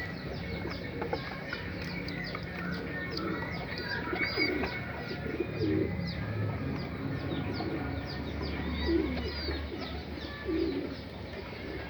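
Doves cooing in low, repeated notes every second or two, over a steady patter of quick, high bird chirps.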